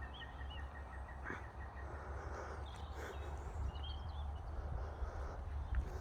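Small birds chirping in short, high arched notes, with a run of quick repeated notes in the first couple of seconds and more chirps around three to four seconds in, over a steady low rumble.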